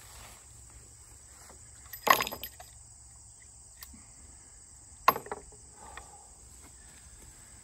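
Two sharp knocks with a short ring, about three seconds apart, as a Smith & Wesson 500 revolver is handled on a wooden picnic table. A steady high chirr of insects runs underneath.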